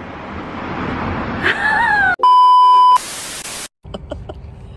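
A rising rush of noise with a brief falling cry from a voice, then a steady high beep for under a second, then a burst of loud static that cuts off suddenly: an edited-in beep-and-static transition effect.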